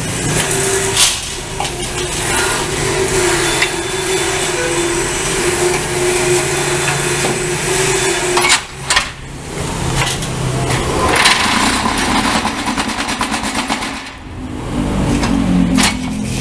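Electric vibrator motor of a concrete block press running, shaking the steel mould table with a loud steady buzzing rattle as it compacts the concrete mix. Several sharp metal knocks come from the press frame and lever, and the noise drops off briefly about a third and again about four-fifths of the way through.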